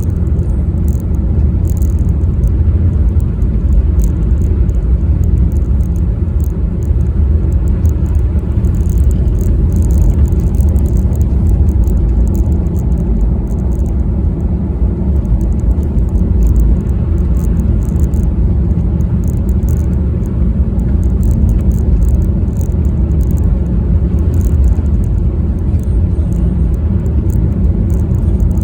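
A car driving along the road: a steady, loud low rumble of engine and tyre noise.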